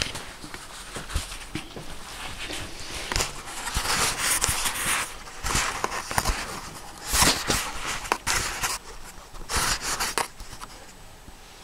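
Camera handling noise as the camera is propped up and steadied on the floor: irregular rustles and small knocks, with a cluster of sharper knocks about halfway through.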